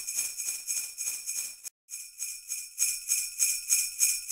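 Sleigh bells jingling in a steady shaken rhythm, about four shakes a second, with a brief break just under two seconds in.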